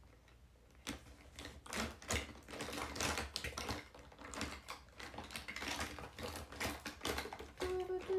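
Irregular light taps and clicks of fingertips or nails tapping a smartphone screen.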